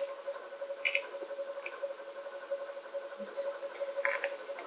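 A few light clicks and plastic crinkles: a small spoon scooping powdered ramune candy mix from a plastic pouch into a plastic mixing tray, over a steady hum.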